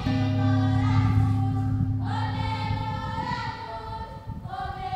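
Soundtrack music: a choir singing long held notes over a low sustained drone, moving to a new chord about two seconds in and again near the end.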